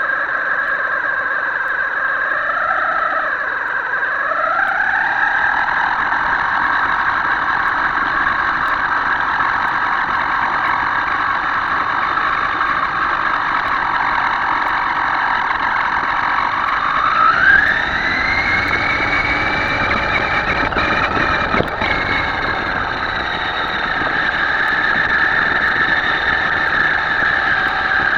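Whine of a Himoto radio-controlled boat's electric motor. Its pitch dips and recovers about three to four seconds in, then climbs sharply about seventeen seconds in as the motor speeds up, and a few short clicks follow a few seconds later.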